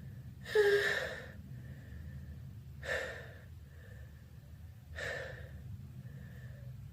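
A person's gasping breaths building up to a sneeze: one loud, sudden gasp about half a second in, then two shorter, fainter gasps about two and four seconds later.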